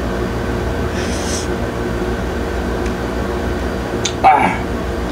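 A man eating a chili-coated fresh shrimp over a steady low room hum: a short hiss about a second in, and a brief loud vocal sound near the end as the chili's heat hits him.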